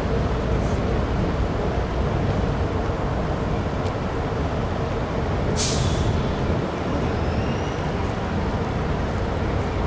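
Steady city traffic noise with a low rumble. A little over halfway through, a short sharp hiss of a large vehicle's air brakes sounds, followed by a faint high squeal.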